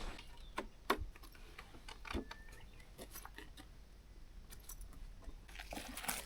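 Scattered light clicks and taps, irregular and a few at a time, over a quiet background.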